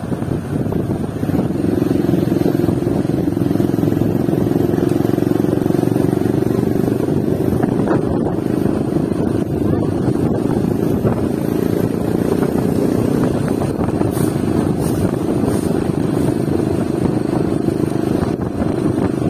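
Motor vehicle engine running at a steady speed while travelling, a continuous low drone that stays even throughout.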